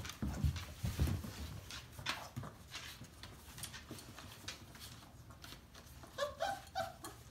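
Dobermann puppies playing with an adult Dobermann on a hardwood floor: claws clicking and paws scuffling on the wood, with dull thumps in the first second or so. A few short, high puppy squeaks come near the end.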